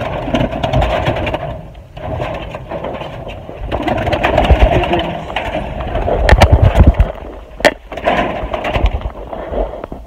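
Rubbing, knocking and clattering handling noise, with many sharp clicks and low thumps that are heaviest a little past the middle and one sharp click near the end.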